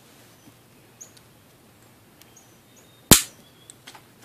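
One loud, sharp snap or crack about three seconds in, following a quiet stretch of hand work on scrap.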